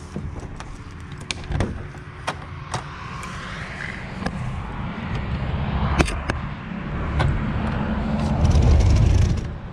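Sharp clicks and knocks as the door of an old food truck is tried and handled, over a low rumble on the microphone that grows louder toward the end.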